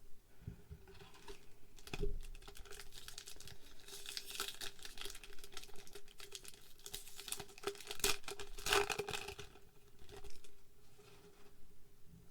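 Foil Pokémon card booster pack being crinkled and torn open, with cards handled in quick small clicks; the crinkling is densest in the middle and loudest around three-quarters of the way through.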